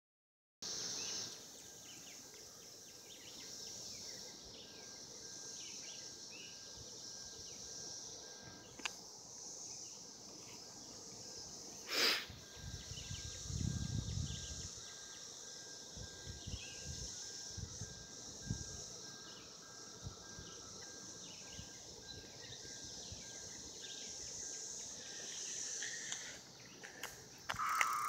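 Background chorus of periodical cicadas: a steady high buzzing drone, with short chirps scattered over it. A sharp click about twelve seconds in is the loudest sound, followed by a few seconds of low rumbling.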